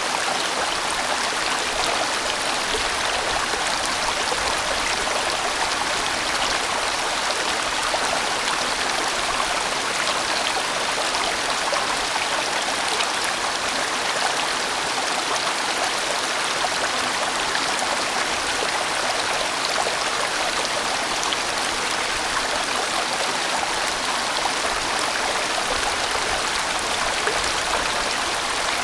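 A large mountain stream rushing and splashing over rocks in a steady, unbroken wash of water sound.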